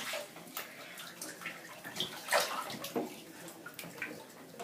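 Bathwater splashing and sloshing lightly in a bathtub as a small child moves in it, with a slightly stronger splash a little over two seconds in.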